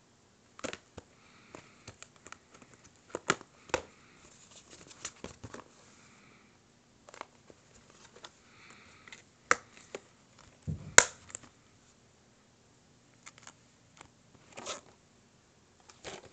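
Plastic DVD cases being handled: irregular clicks and clacks as the cases knock together and are set down, with soft rustling between. The loudest clack comes about eleven seconds in.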